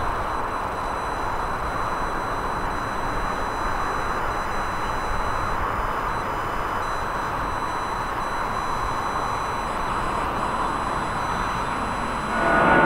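Jet engines of a twin-engine widebody airliner climbing away after takeoff: a steady, even jet noise with faint high whines above it. Shortly before the end it cuts to a louder, closer jet with a buzzing fan tone.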